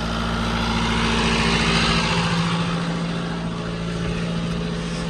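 John Deere tractor engine running steadily under load while pulling a round baler picking up hay. A steady engine hum carries a broad rushing noise that swells about a second in and eases off after about three seconds.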